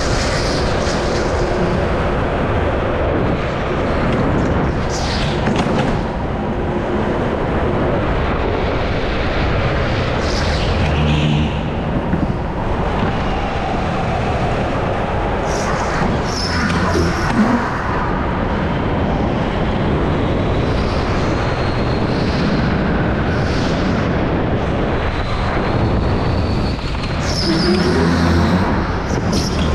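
Go-kart running at speed, heard from on board the kart: a loud, steady rush of running noise, with short higher-pitched squeals every few seconds.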